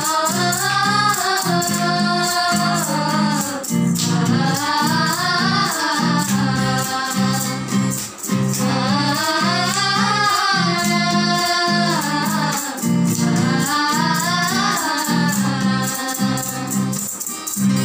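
Several young women singing a song together, accompanied by a strummed acoustic guitar.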